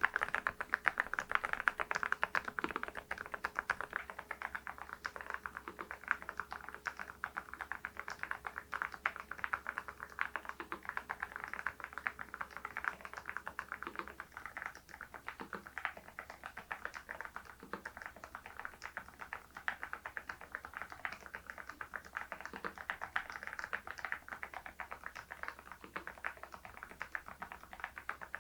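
RK R99 mechanical keyboard fitted with HMX V0-SS switches being typed on steadily, a continuous run of quick key clicks.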